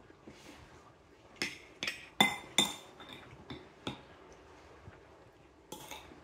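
Metal spoon clinking and scraping against a ceramic plate while scooping up food: a run of sharp clinks, the loudest a little past two seconds in with a short ring, and a brief scrape near the end.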